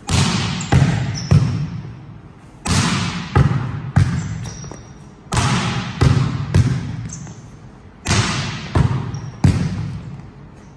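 Heavy thumps in a steady rhythm: three about two-thirds of a second apart, then a pause, the group repeating about every two and three-quarter seconds, each thump ringing on in a large hall.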